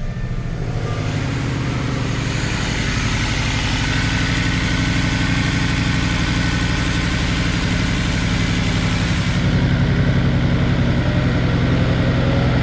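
Jaguar S-Type 3.0 V6 engine idling just after a start, with a steady low pulse. Cylinder number 5 is not firing, a misfire that the mechanic puts down to a bad ignition coil.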